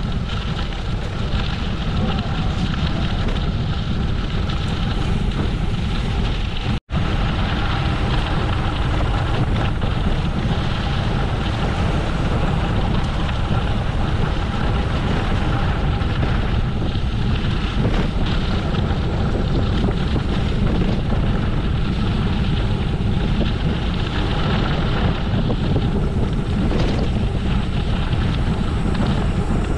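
Steady rush of wind buffeting the microphone of a camera on a moving bicycle. The sound drops out completely for an instant about seven seconds in.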